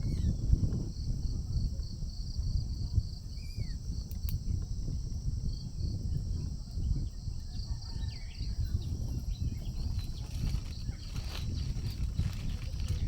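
Morning outdoor ambience: insects keep up a steady, pulsing high chirr, a bird gives a few short chirps, and a constant low rumble sits underneath.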